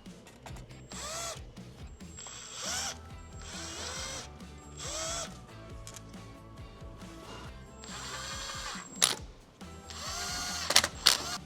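Power drill running in about six short bursts, its motor whine rising each time it spins up. A few sharp clicks come near the end.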